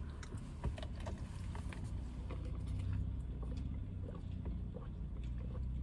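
Steady low hum of a car's cabin, with faint scattered small clicks and rustles of handling.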